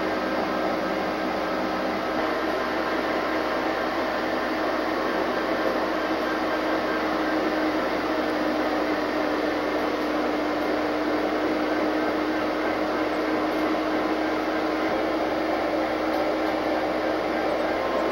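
Steady mechanical hum and whir inside the cab of an EMD SD60M diesel-electric locomotive sitting idle, a low steady tone under an even hiss.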